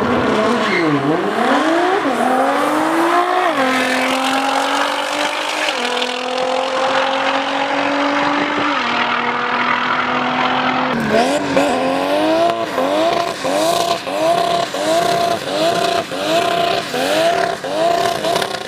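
A car engine accelerating hard through the gears, its pitch climbing and dropping back at each of several upshifts. About eleven seconds in, an engine is revved in quick repeated blips, about two a second, to the end.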